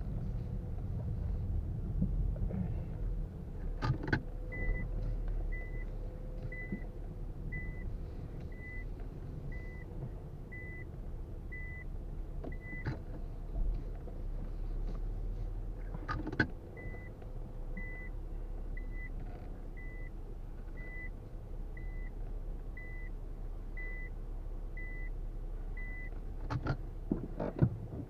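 A car's reverse-gear warning beeper sounds a short, high beep about once a second in two runs, with a pause between, over the low hum of the Nissan Fuga's idling VQ37VHR V6. A few sharp clicks come where the beeping starts and stops, and a cluster of clicks comes near the end.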